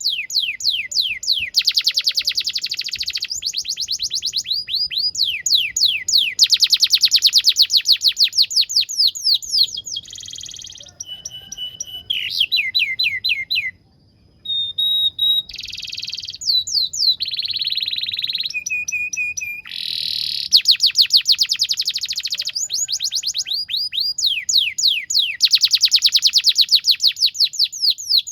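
Domestic canary singing a long song: series of fast, rapidly repeated down-slurred notes and trills, switching from one run of notes to the next every few seconds, with a short pause about halfway through.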